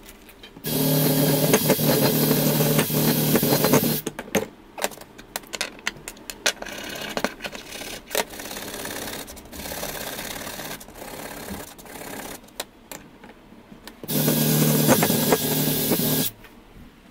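A power tool's motor running in two spells of a few seconds each, one near the start and one near the end, stripping surface rust off a steel table-saw fence part. Between the spells come irregular scraping and clicks.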